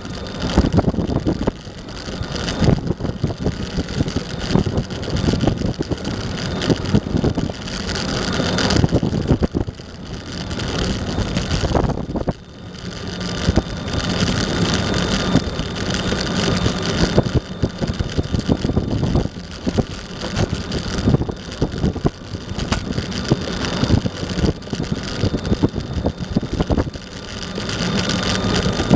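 Eglide electric skateboard rolling over pavement, heard from a camera on the board: steady wheel and deck noise with constant small rattles and bumps, wind on the microphone, and a faint steady whine. The noise eases briefly about twelve seconds in.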